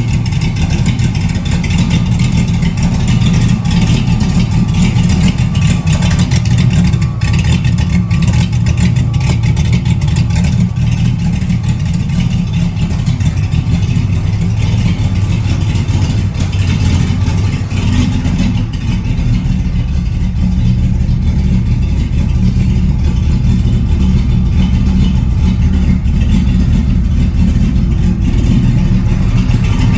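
Cammed car engine running steadily, with a fast ticking over it through roughly the first two thirds that fades out later. The ticking is typical of the exhaust leak the owner says it has.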